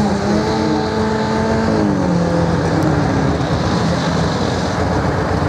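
Engine of a tractor-pulling competition vehicle running loudly, its pitch falling about two seconds in.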